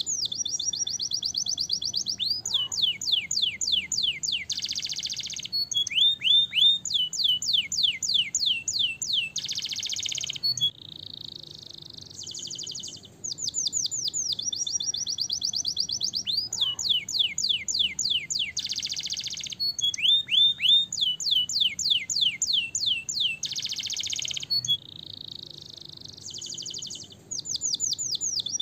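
Domestic canary singing a long, fast song of rapid trills, runs of falling whistled notes and buzzy rolls, dropping briefly to a softer passage twice. The same song sequence is heard twice over.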